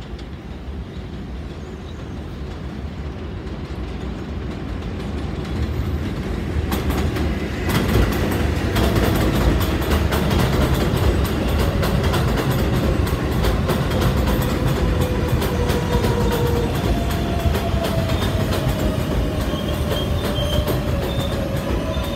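A New York City Subway R142-family train approaching and pulling into an elevated station. It grows steadily louder over the first eight seconds, then its wheels clatter over the rail joints as the cars run past, over a faint whine that falls slowly in pitch as the train brakes.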